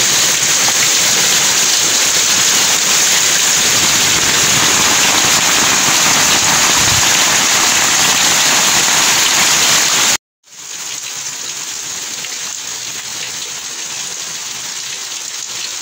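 Heavy rain pouring, a loud, even hiss that cuts off about ten seconds in; after a moment's gap it comes back quieter as rain splashing on a flooded concrete yard and into plastic tubs.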